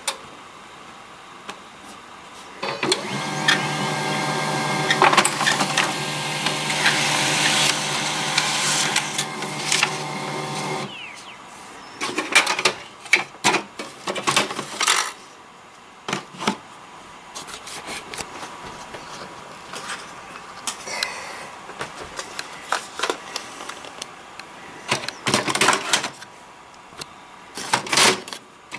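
HP LaserJet 1022 laser printer running through a print cycle, its motor and rollers turning steadily with a squeaking whine for about eight seconds before stopping abruptly. Scattered sharp clicks and knocks follow.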